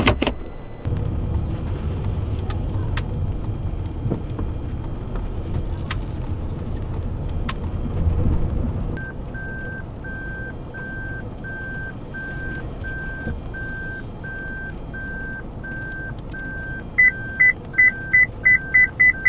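Car running with a low engine and road rumble; about halfway in, the reverse-gear warning starts beeping slowly and evenly, and near the end a higher parking-sensor beep joins, beeping fast, the sign that the car is backing close to an obstacle while parking.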